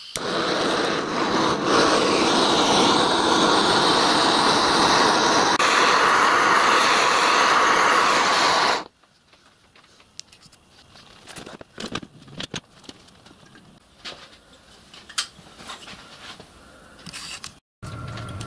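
Handheld gas blowtorch running with a steady rushing hiss as it heats steel ball bearings to cherry red to soften them. About nine seconds in it stops abruptly, leaving a much quieter stretch with scattered light clicks and knocks.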